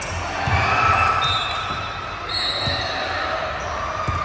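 Basketball bouncing on the court during a game: a few irregular low thuds, with short high squeaks over the constant noise of the gym.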